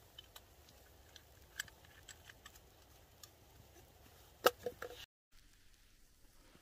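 Small clicks and taps of a camp spoon and food items being handled, with a sharper clatter of several quick clicks about four and a half seconds in. Just after, the sound drops out for a moment and a faint, quiet hush follows.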